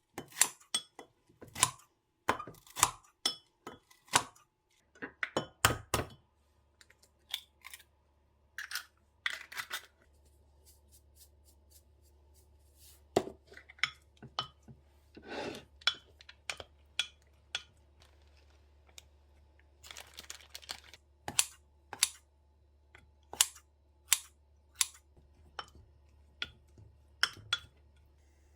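Kitchen handling sounds: a long run of separate sharp clicks, taps and clinks of dishes, containers and utensils. A low steady hum starts about five seconds in.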